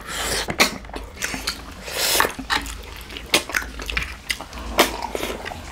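Close-up eating sounds: many short wet clicks and smacks of chewing, with two brief slurping hisses, one at the start and one about two seconds in, as snails and curry are eaten by hand from plates.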